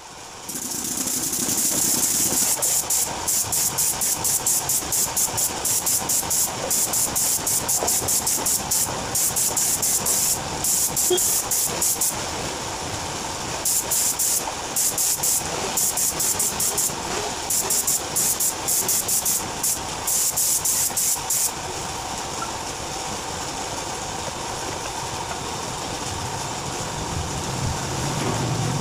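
Compressed-air paint spray gun hissing in many quick on-off bursts as the trigger is pulsed while spraying paint onto a car's alloy wheel. The bursts stop about three-quarters of the way through, leaving a steady, fainter hiss and hum.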